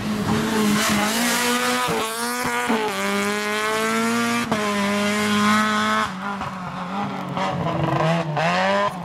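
Peugeot 206 rally car's engine revving hard as it passes, its pitch climbing and dropping back at several upshifts, then rising again near the end.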